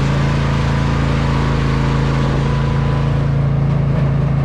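Riding lawn mower engine running at a steady speed.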